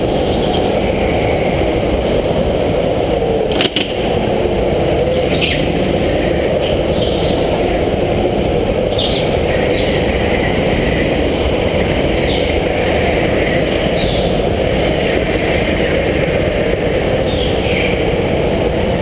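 Go-kart engine running with wind rush on a helmet-mounted camera as the kart is driven around the track and into the pit lane, with one sharp knock a little over three seconds in.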